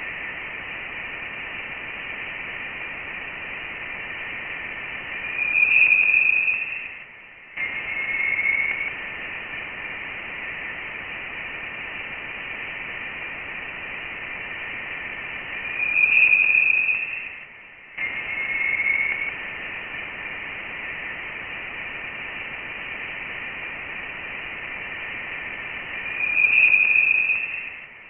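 Radio-like static hiss with a steady high tone, presented as the sound of interstellar space. About every ten seconds a louder whine swells up, the sound briefly drops out, and a short tone follows; the pattern comes three times.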